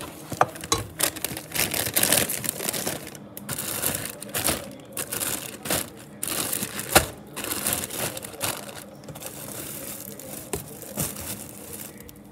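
Grocery bags crinkling and rustling as items are pulled out and handled, with a few sharp knocks, the loudest about seven seconds in.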